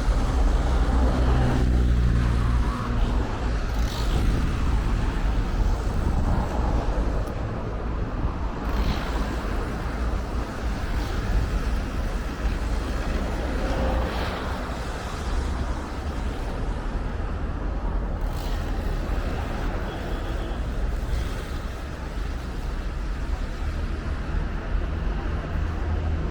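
Steady road traffic noise of vehicles passing on a busy road, with a heavy low rumble that is a little louder in the first few seconds.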